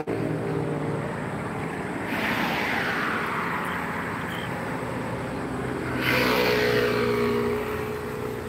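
Road traffic passing: one vehicle about two seconds in and a louder one about six seconds in, each a rush that swells and fades, over a steady engine drone.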